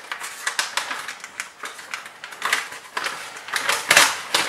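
Cardboard and plastic packaging rustling and crackling as it is pulled open by hand: a quick, uneven run of crinkles and clicks, loudest near the end.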